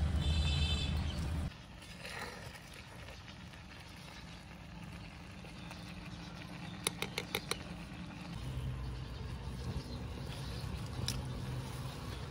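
A small metal spoon stirring and tapping in a miniature clay cooking pot, with a quick run of about five clicks about seven seconds in. A loud low hum fills the first second and a half, then cuts off suddenly.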